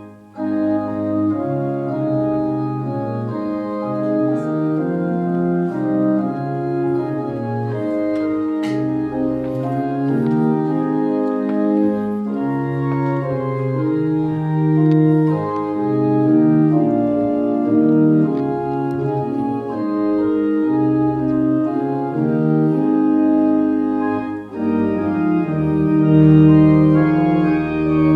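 Organ playing a piece in held chords that move from one to the next every second or so, with a brief break about 24 seconds in.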